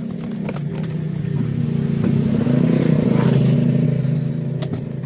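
Motor vehicle engine passing close by, building to its loudest about three seconds in and then easing off, with a few light clicks over it.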